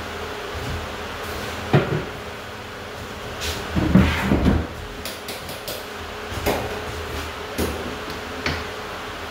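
Knocks and clattering in a small prefab cabin: one sharp knock, a louder burst of clatter about four seconds in, then three single sharp clicks, over the steady hum of a ceiling fan.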